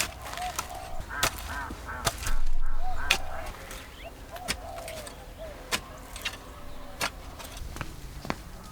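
Domestic fowl calling in short, repeated honks, with sharp knocks about every second and a louder burst of noise about two and a half seconds in.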